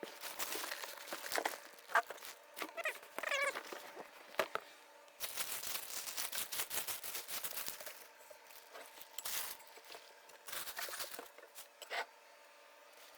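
Cardboard shipping box being cut open along its side with a knife, with scraping, rasping and tearing cardboard, the longest stretch about five seconds in. A short wavering squeal sounds about three seconds in.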